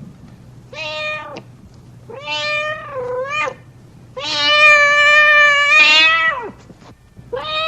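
Domestic cat meowing repeatedly, a hungry cat's calls: a short meow, a longer one that dips in pitch, a long drawn-out meow that falls at its end, and another starting near the end.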